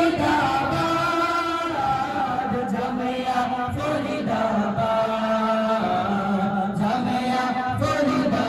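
A group of male voices singing a Bengali Islamic tarana (school anthem), chanting together in long held notes that step from pitch to pitch.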